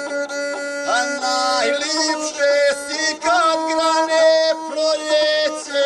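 A man singing a guslar epic song to his own gusle, the single-stringed bowed folk fiddle, the voice and the fiddle moving together in short wavering melodic turns over a steady lower tone.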